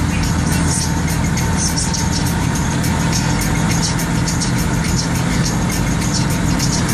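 A car's engine and tyre noise, heard steadily from inside the cabin while driving.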